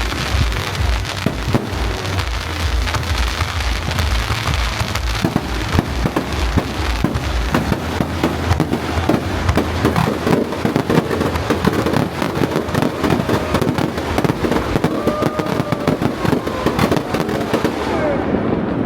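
Fireworks display with a dense, continuous crackle of bursts, and deep booms during the first half.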